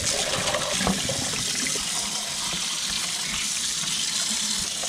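Tap water running steadily into a stainless steel sink, splashing over a plastic cup and a palette as paintbrushes are rinsed clean, with a few light knocks of the cup and brushes.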